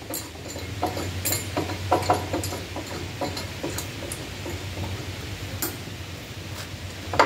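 Light, irregular metal clicks and ticks as bolts fitted with lock washers are threaded by hand through a tractor's rear tie-down bracket, with a sharper click near the end.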